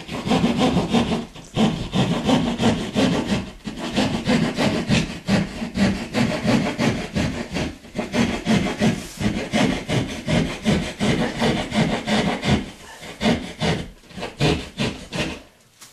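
Hand drywall saw cutting through a sheetrock ceiling overhead, rasping in quick back-and-forth strokes, a few a second, with no let-up.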